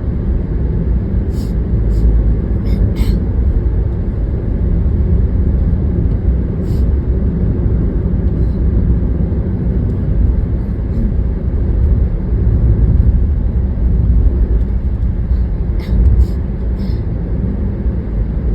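Steady low rumble of road and engine noise inside a moving car's cabin. A few brief, sharp, faint sounds sit on top of it, a cluster in the first few seconds, one around the middle and a few near the end.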